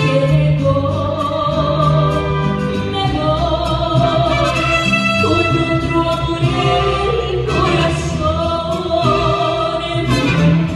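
A song with several voices singing together over instrumental accompaniment, with percussion keeping a beat.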